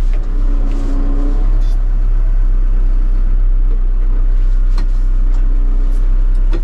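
Diesel engine of a CAT wheeled excavator running steadily, heard inside the cab as the machine is driven and steered. There is a deep steady rumble, a brief rising whine about a second in, and a few short clicks near the end.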